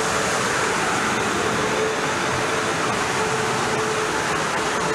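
South Western Railway Class 450 Desiro electric multiple unit running slowly alongside the platform as it comes to a stand: a steady rush of wheel and running noise with a faint steady hum underneath.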